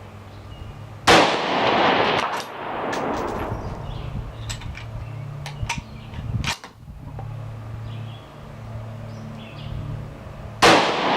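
Two rifle shots from a Savage .223, about nine and a half seconds apart, each rolling off in a long echo. A few sharp clicks fall between the shots.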